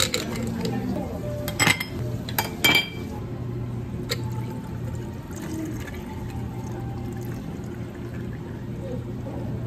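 Ice cubes clinking into a tall drinking glass, a few sharp knocks in the first three seconds, then water poured from a stainless steel pitcher over the ice, filling the glass steadily. A steady low hum runs underneath.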